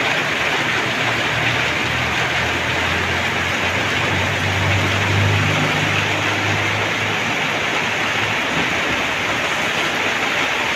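Steady hiss of heavy rain falling on the river and the bridge. Under it is a low engine hum that grows louder in the middle and fades out near the end.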